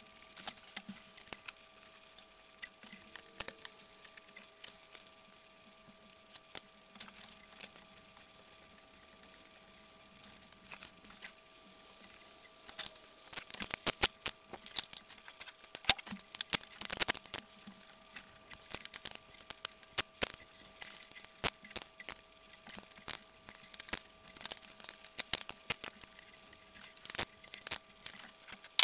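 Small metallic clicks and clinks of hands handling bolts and metal parts deep in a car's engine bay, sparse at first and coming thick and fast from about halfway through.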